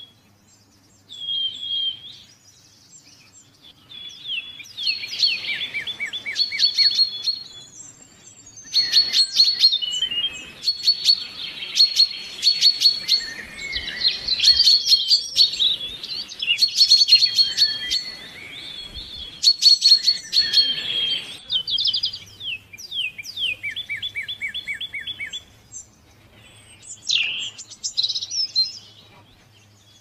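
Several songbirds singing and calling in quick repeated notes and trills. The chorus grows denser, with songs overlapping, from about nine seconds in until about twenty-one seconds in.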